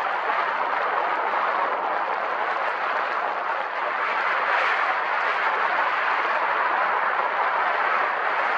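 Steady rushing wind noise, an even hiss with no rhythm or distinct events.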